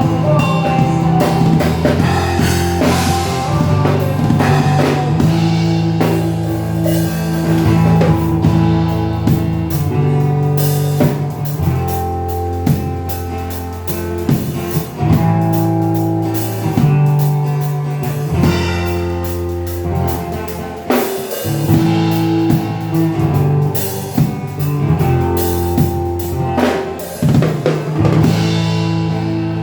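A live band playing at a sound check: a drum kit beat over held bass-guitar notes that change every second or two, with guitar, and no singing.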